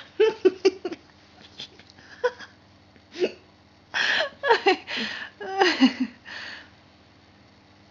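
A person's voice in short bursts with falling pitch, in a few clusters, over a faint steady hum.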